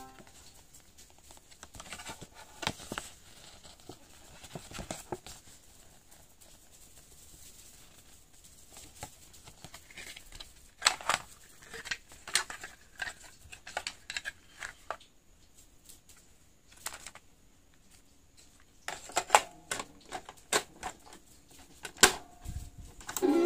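Handling of a plastic cassette case and its paper insert card: scattered clicks, taps and short rustles. Near the end comes a quick run of sharper plastic clicks as a cassette goes into a portable stereo's tape deck.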